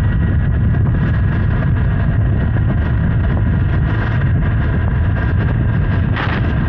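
Honda Hornet 900's inline-four engine running steadily while the bike is ridden, under a heavy rush of wind on the microphone.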